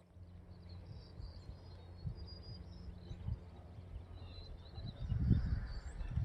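Quiet outdoor ambience: faint high bird chirps over a low steady hum, with louder low rumbling starting about five seconds in.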